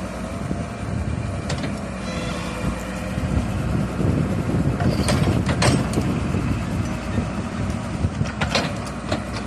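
Hyundai excavator's diesel engine running steadily, with several sharp metallic knocks; the loudest come about five to six seconds in and again near the end.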